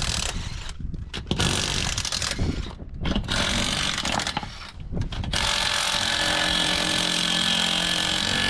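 Power impact wrench driving a wheel's lug nuts: three short bursts, then a longer unbroken run about five seconds in, as the nut is run down hard.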